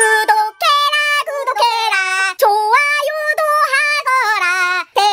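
A woman singing a high-pitched, sing-song Korean chant without accompaniment: "구독해라, 구독해라" (subscribe, subscribe), then "좋아요도 하거라" (hit like too), in several short phrases with held, wavering notes.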